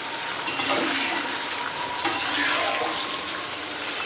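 Water running steadily from a tap with a rushing hiss.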